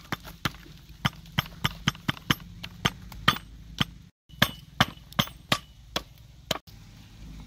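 Sharp wooden knocks, two or three a second, as sticks and burning firewood are knocked against the stones and the metal pot they are being stacked on, with a short break a little past four seconds.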